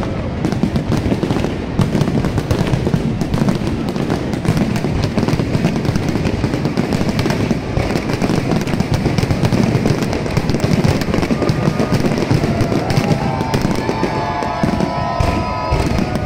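Large aerial fireworks display: a dense, continuous crackling and banging of many shells bursting and overlapping, with no let-up.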